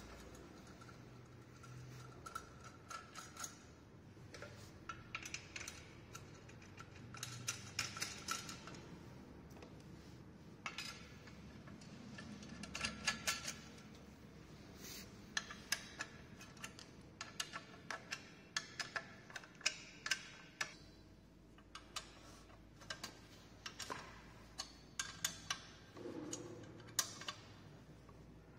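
Metal exercise-bike frame parts and bolts clicking and knocking as they are handled and fitted together during assembly: a run of irregular sharp clicks and taps.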